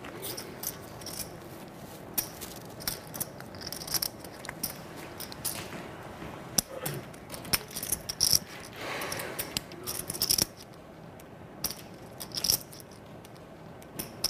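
Clay poker chips clicking together in short irregular clusters as they are shuffled and handled at the table.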